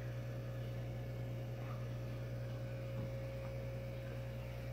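Steady low electrical hum of running aquarium equipment, with a faint higher steady tone over it.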